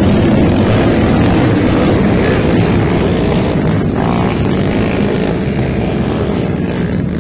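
Several underbone motorcycle engines revving hard together as the bikes slog through deep mud, a continuous overlapping engine noise that eases slightly near the end.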